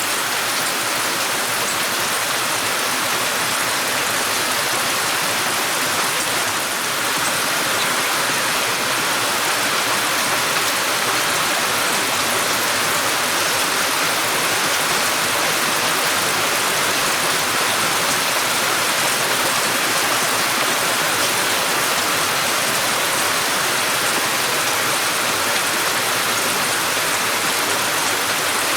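Steady rain falling, an even hiss of many drops, strongest in the high range.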